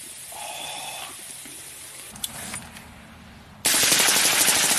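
An AR-style rifle with a foil-wrapped suppressor fires a long, rapid, unbroken burst of shots, starting about three and a half seconds in. Before the burst there are a few seconds of quiet.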